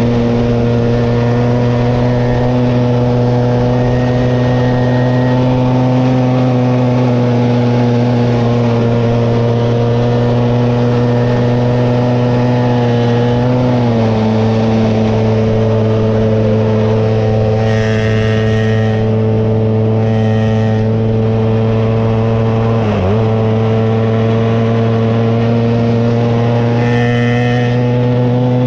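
Small gasoline engine running at a constant high speed, held at full throttle, which the rider puts down to a throttle stuck wide open. The steady drone drops slightly in pitch about halfway through and sags for an instant later on.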